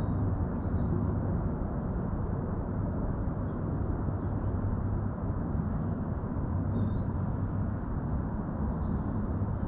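Steady low rumble of outdoor background noise, with a few faint, short high-pitched peeps.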